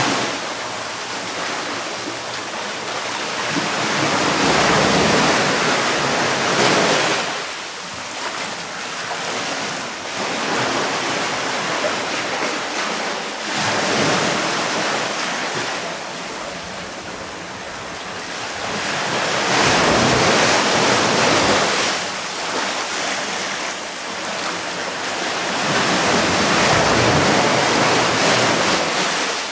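Small sea waves washing onto sand and rock. The surf swells and fades every few seconds as each wave breaks and draws back.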